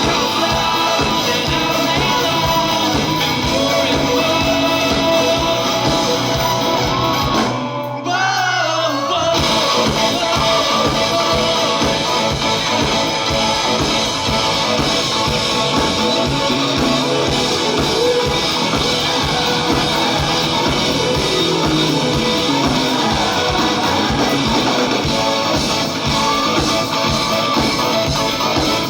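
Live rock band playing: singing over guitar and a steady drum beat, with a brief break in the beat about eight seconds in before the full band comes back.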